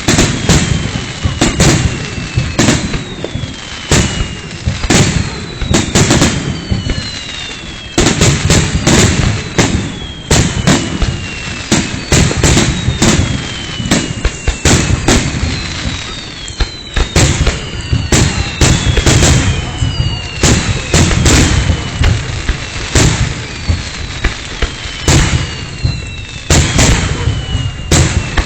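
Fireworks finale: a dense barrage of aerial shells bursting, the bangs coming thick and fast and overlapping, with falling whistles recurring every second or two.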